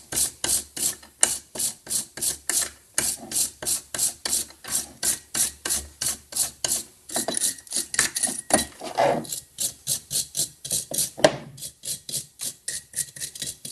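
Hand wire brush scrubbing a steel lathe cutting-head plate in quick back-and-forth strokes, about three or four a second, bristles rasping on the metal; the strokes stop just before the end.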